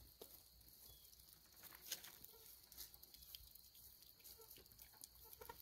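Near silence: faint outdoor background with a few scattered small clicks, one a little louder about two seconds in.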